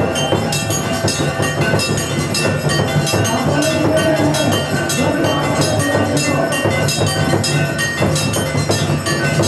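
Devotional music: a fast, steady beat of ringing metal percussion, about four strikes a second, over sustained tones.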